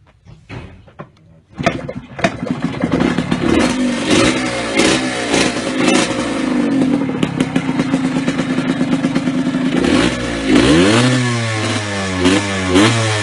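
A Yamaha DT 125's two-stroke single-cylinder engine starts suddenly about a second and a half in, after a few faint clicks, and runs fast and loud. From about ten seconds in it is revved in repeated quick blips, the pitch rising and falling roughly once a second.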